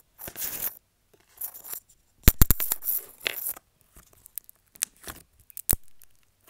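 Old, stiff slime being kneaded and pressed by hand, giving short squishy tearing sounds with a quick run of sharp pops about two seconds in and scattered clicks after. The tearing is typical of slime gone rippy from sitting in its container a long time.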